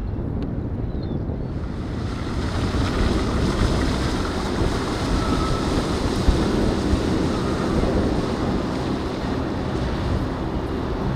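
Wind buffeting the microphone over a steady rush of water and waves, with a fuller hiss coming in about two seconds in. No motor is heard under it.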